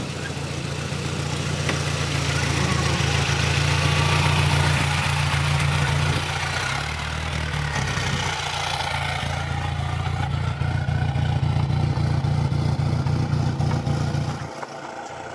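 Off-road 4x4's engine running at low, steady revs, with a rapid clatter of small clicks in the second half; the engine sound drops away near the end.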